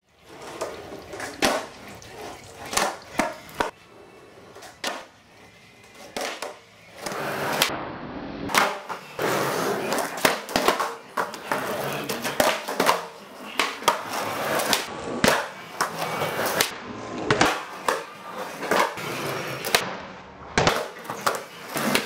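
Freestyle skateboarding on a concrete garage floor: the wooden deck clacks down sharply again and again as tricks land, with the wheels rolling and scraping between the impacts.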